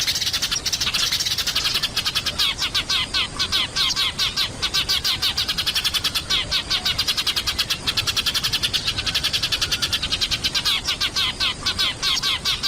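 Sparrows chirping in a rapid, continuous chatter of short, high chirps, several each second.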